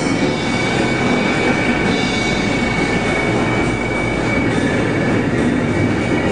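Live noise music from improvised electronics and experimental guitar: a dense, steady wall of harsh noise with a thin high tone above it.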